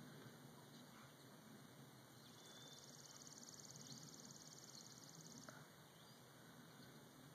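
Near silence: faint outdoor ambience, with a faint, high, rapid trill from about two seconds in until about five and a half seconds in.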